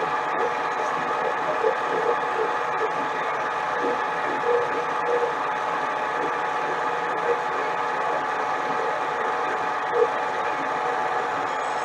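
Harbor Freight mini lathe running under a cut, its motor and drive giving a steady whine of several tones, with small irregular ticks from the tool cutting the spinning workpiece and one slightly louder tick near the end.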